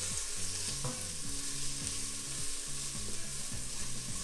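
Carrots and celery sizzling in hot olive oil in a soup pot as they are stirred, with a short clink about a second in.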